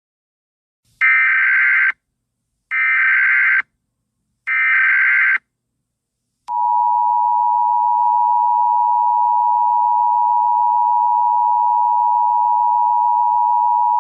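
Emergency Alert System alert tones: three short bursts of SAME header data tones, each just under a second and spaced about a second and a half apart, then from about six and a half seconds in the EAS two-tone attention signal, two steady pitches sounded together. This sequence announces that an emergency alert message follows.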